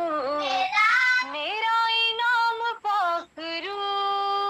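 A woman singing an Urdu hymn to the Holy Spirit solo, holding long notes that slide between pitches, with a short breath about three seconds in.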